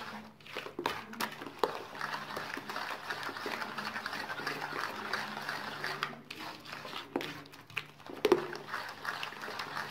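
A hand beating eggs, sugar and oil around a glazed earthenware bowl, a continuous wet mixing noise with a few sharper slaps about a second in and twice near the end, while the sugar is worked in to dissolve.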